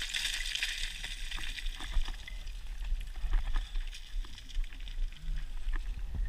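Footsteps and trekking-pole strikes on loose rock and scree, with small stones clattering and a hissing slide of loose scree that fades over the first second or two. A steady low rumble lies underneath.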